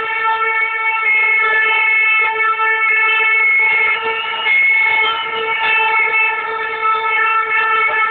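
A horn sounding one long, steady tone that holds its pitch without a break.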